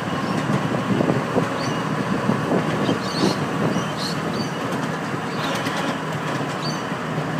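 Miniature railway train running along its track, heard from the locomotive: a steady rumble of the loco and its wheels on the rails. Short high chirps come through now and then.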